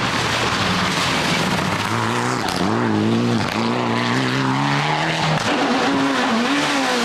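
Rally cars at speed on a gravel stage: a Mitsubishi Lancer Evolution's engine is revving hard, its pitch climbing and dropping sharply twice with lifts and gear changes, over a steady hiss of tyres on gravel. About five seconds in, a Škoda Fabia rally car's engine note takes over.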